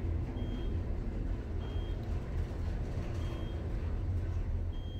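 Otis traction elevator car travelling up the hoistway: a steady low rumble of cab ride noise. A short high beep sounds four times, about every one and a half seconds, once at each floor passed.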